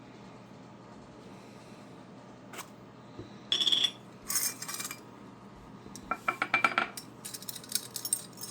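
Small metal parts of an antique Star safety razor and its tin clinking, scraping and rattling as they are handled. After a quiet start there is a single click, then two short clusters of clinks, then a run of quick rattling clicks in the last few seconds.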